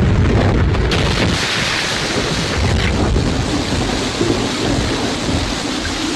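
Action-film sound effects: a deep rumble in the first second gives way to a loud, steady rushing noise like a storm wind.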